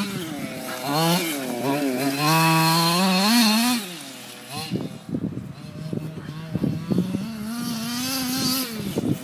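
Small two-stroke petrol engine of a Losi 5ive T 1/5-scale RC truck, revving up and down in waves as the truck is driven. It drops to a lower, rougher running from about four to seven seconds in, then climbs again.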